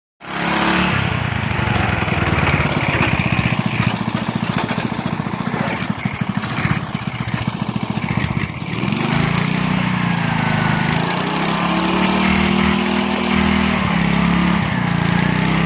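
Riding garden tractor's small single-cylinder-class engine running hard under load while towing on a strap, rough and pulsing for the first half, then its pitch wavering up and down in the second half.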